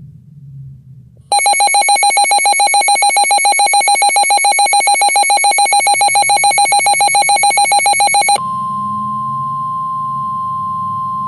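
Emergency alert tones: a harsh, rapidly pulsing alert tone about seven seconds long, which cuts off abruptly into a single steady, slightly higher tone, the NOAA Weather Radio warning alarm that comes before a National Weather Service warning.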